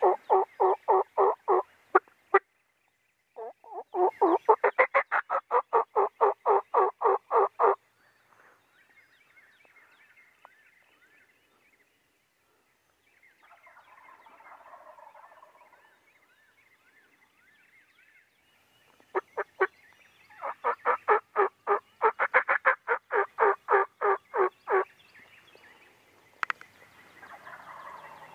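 Wild turkey gobbling in three long runs of rapid, evenly spaced rattling notes: one at the start, one from about four to eight seconds in, and one from about twenty to twenty-five seconds in.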